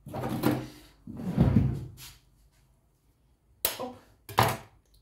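A kitchen drawer being opened and pushed shut, with its contents rattling, twice in the first two seconds. Near the end come two short, sharp taps.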